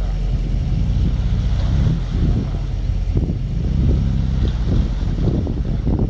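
Mitsubishi Pajero off-roader's engine running under load, revs rising and falling as the 4x4 crawls through deep mud.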